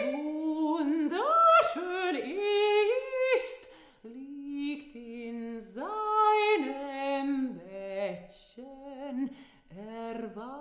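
Unaccompanied voices singing slow, held notes that slide up and down between pitches, with two vocal lines moving separately.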